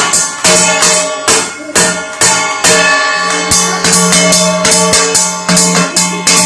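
Metal kitchen vessels, among them a parat (a wide dough-kneading plate), beaten in a rhythm of about two strikes a second, each strike leaving a sustained metallic ring.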